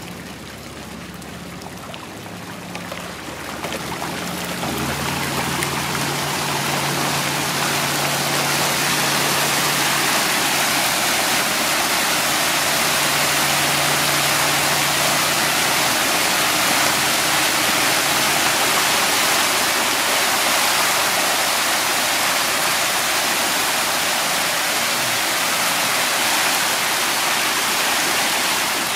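A dense school of small fish thrashing and splashing at the water's surface, a continuous rushing splash like a stream that swells over the first few seconds and then holds steady.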